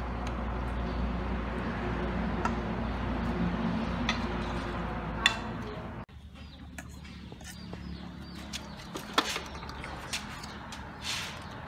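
A metal spoon stirring a thick paste in a stainless steel bowl, with a few sharp clinks of spoon on metal. The background changes abruptly about halfway through, followed by a few more clinks and scrapes as the paste is spooned from the bowl into a pot.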